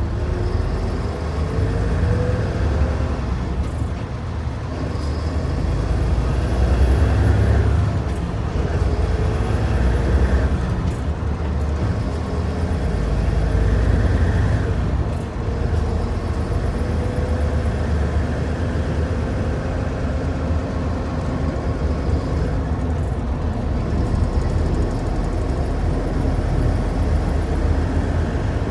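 Hino Profia heavy truck's diesel engine and road noise heard from inside the cab while driving, a steady low rumble with a thin whine that rises in pitch over the first few seconds.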